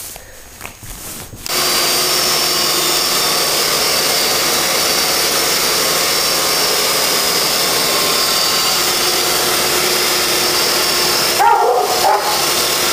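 Moulinex food processor running at full speed, starting about a second and a half in: a loud, steady motor and blade noise. Near the end a short high cry sounds over it.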